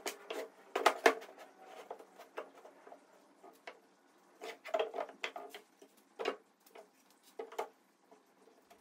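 Cut lumber pieces, 2x4s and 4x4 blocks, knocking and clattering as they are set down and stood up on a plastic folding table: a string of irregular wooden knocks, the loudest about a second in.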